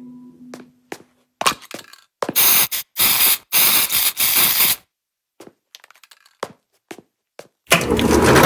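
Logo sound effect of sharp, crackling bursts broken by short silences, the loudest and longest in the middle, followed by a few scattered small clicks. Music swells in near the end.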